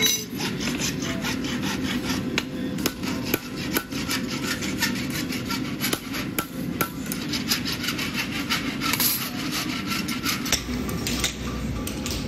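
Farrier's rasp scraping a horse's hoof in quick, repeated strokes, with a sharp tap now and then.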